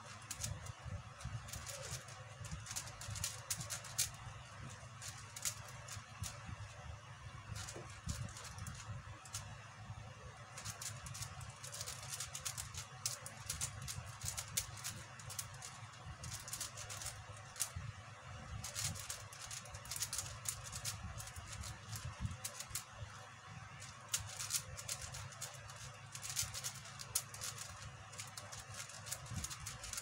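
QiYi 5x5 speedcube being turned fast: a continuous irregular stream of plastic clicks and clacks as its layers are twisted.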